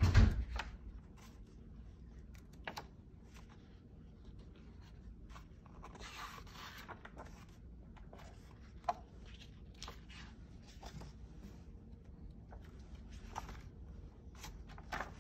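Pages of a hardcover book turned by hand: paper rustling and sliding, with a few light page flaps and ticks. A dull thump comes right at the start.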